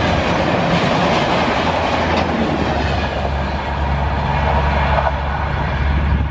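Train hauled by an ALCO diesel locomotive passing at speed, its wheels clattering over the rail joints. The clatter eases about halfway through while a low rumble carries on.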